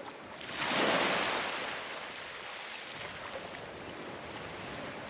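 Small waves washing onto a sandy beach, one wash swelling and fading away about a second in, over a steady low wash of surf.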